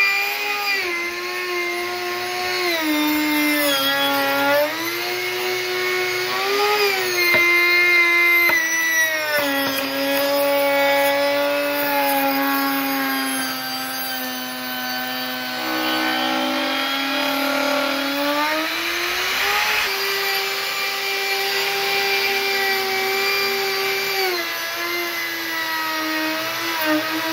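Bosch 2¼ hp router running with a Grizzly bit, cutting across a live edge slab on a leveling sled. A continuous high whine whose pitch dips and rises again several times along the pass.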